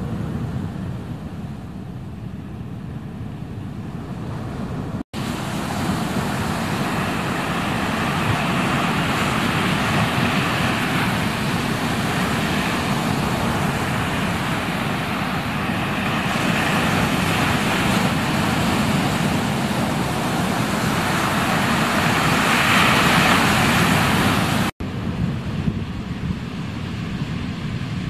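Ocean surf: a steady wash of breaking waves. It cuts out for an instant twice, about five seconds in and near the end, and is louder and brighter between the two cuts.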